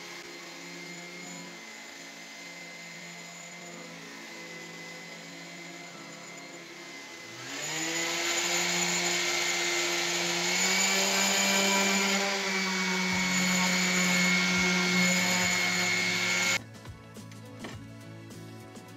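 Random orbital sander running on a steel cleaver blade, a steady motor whine. About seven seconds in it grows louder and rises in pitch, then holds steady. It cuts off suddenly near the end.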